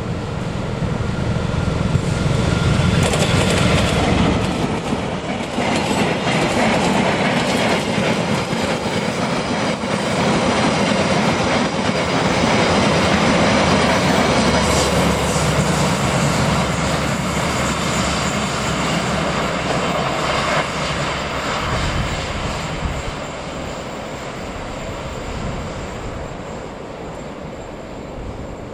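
An Indonesian diesel-hauled passenger train passes close by. The locomotive's engine rumbles low as it comes past, then the coaches run by with a steady clickety-clack of wheels over rail joints and a faint wheel squeal. The sound fades gradually over the last few seconds.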